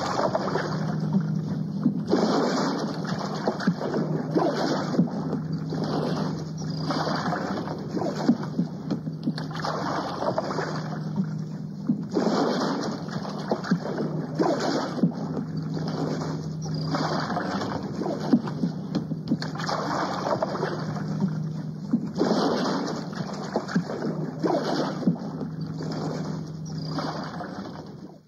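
A sound effect played from a cassette tape: rhythmic swells of splashing, sloshing water, one about every second or second and a half, over a steady low hum, fading out at the end.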